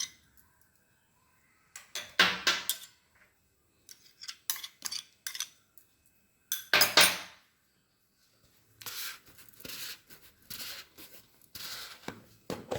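Metal spoon clinking and scraping against a bowl while ingredients are spooned in: a few sharp knocks around 2 s and 7 s, then a run of short scraping strokes from about 9 s.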